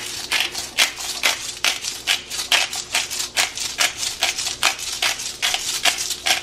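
Handheld salt grinder being twisted, crunching salt crystals in a quick run of sharp grinding clicks, about four or five a second.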